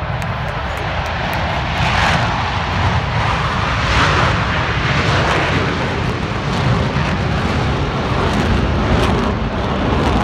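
A formation of military jets flying low overhead, their engine roar building over the first couple of seconds, swelling around two and four seconds in, then staying loud.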